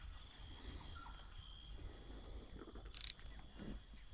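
Insect chorus: a steady, high-pitched drone with no break. A short sharp click about three seconds in.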